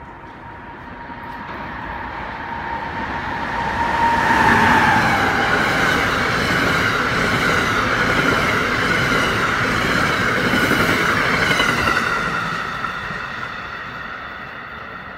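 Amtrak Northeast Regional train passing through the station at speed, growing louder as it approaches. A high whine drops slightly in pitch as the locomotive goes by about four to five seconds in. The rushing wheel-and-rail noise of the passenger cars goes on for about eight seconds, then fades as the train recedes.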